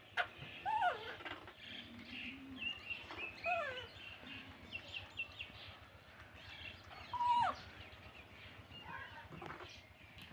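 Animal calls: a string of short, high calls, several sliding down in pitch, with quick chirps between them. The loudest come about a second in and again around seven seconds.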